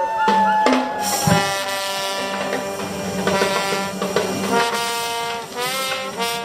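Brass marching band with saxophones and sousaphone playing a tune, the horns holding long notes in chords, with a few notes bent near the end.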